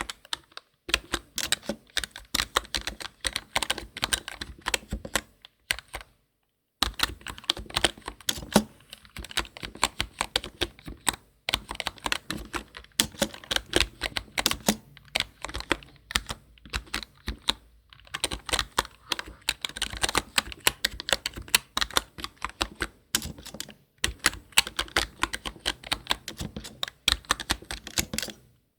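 Computer keyboard typing: quick runs of key clicks and taps, broken several times by short pauses.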